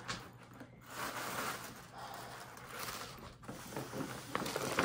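Soft rustling and crinkling of gift wrapping paper as a present is handled and unwrapped.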